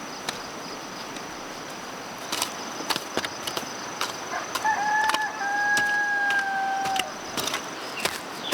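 A rooster crows once about halfway through, one drawn-out call that ends on a long held note. Scattered light clicks and taps sound throughout, with a faint steady high tone.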